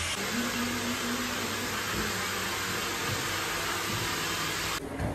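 Hair dryer blowing steadily, cutting off suddenly near the end.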